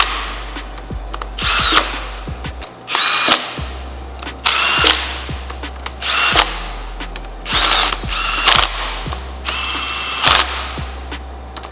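A cordless power tool runs down the valley cover bolts on an engine block in about seven short bursts, each whirring up to speed and winding back down.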